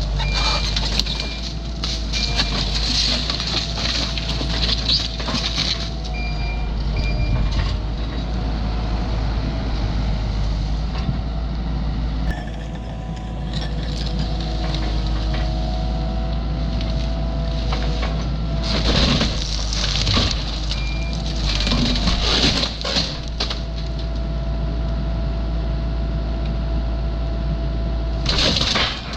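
Skid loader engine running under load while it tears down a garage addition. Crunching and cracking of the building's panels and framing rise in bursts over the engine.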